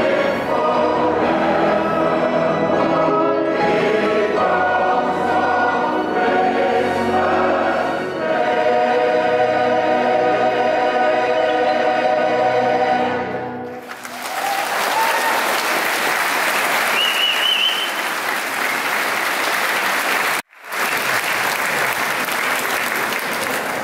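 A large mixed choir singing with accompaniment, the piece ending about fourteen seconds in. A hall full of audience then applauds, the applause breaking off for an instant near the end.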